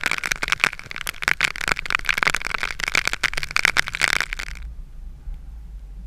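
Heavy rain falling, a dense crackle of drops striking close to the microphone. It cuts off abruptly about four and a half seconds in, leaving a faint low rumble.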